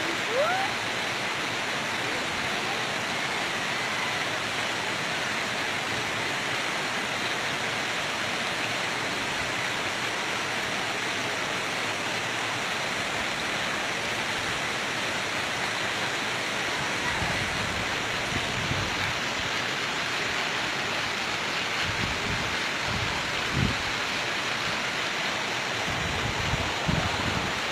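Water pouring steadily into concrete trout-farm tanks, a constant rushing splash. Intermittent low thumps come in during the second half.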